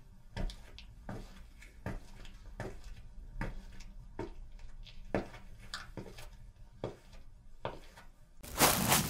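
Slow, evenly spaced footsteps, about one every three-quarters of a second. Near the end a loud rushing noise swells up and takes over.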